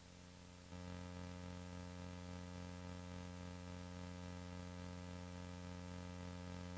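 Steady electrical hum, a buzz of several even tones that gets louder and fuller a little under a second in and then holds unchanged.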